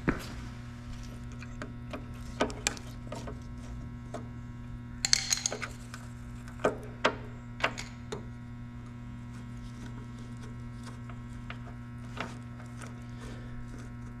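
Scattered light metal clicks and knocks, with a brief clattering scrape about five seconds in, from a screwdriver working a hose clamp on a lawnmower's fuel line, over a steady low electrical hum.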